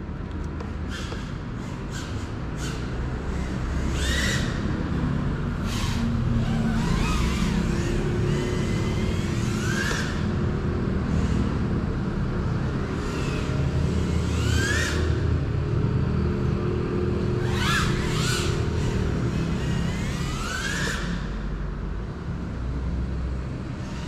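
GEPRC CineLog35 FPV cinewhoop drone in flight, its motors and propellers whining and surging in pitch several times as the throttle is worked and it swoops past, over a steady low rumble.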